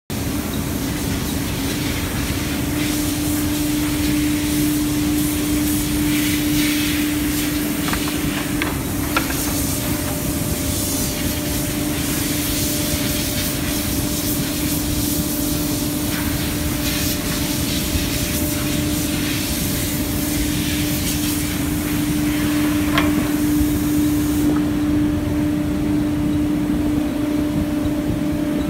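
Profile sanding machine running: a steady motor hum under the hissing rub of its sanding rollers on wooden panels. The hiss drops away about four seconds before the end while the hum carries on.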